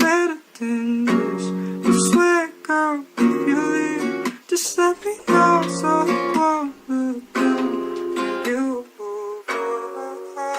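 Background music: acoustic guitar strumming chords, with picked melody notes between the chords.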